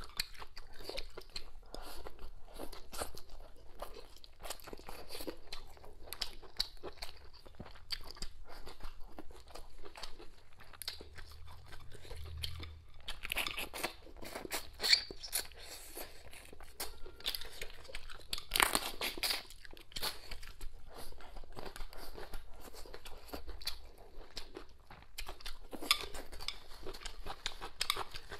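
A person chewing and crunching food close to a clip-on microphone: many sharp clicks and crackles, a mukbang-style eating sound, with a few louder crunches about halfway through.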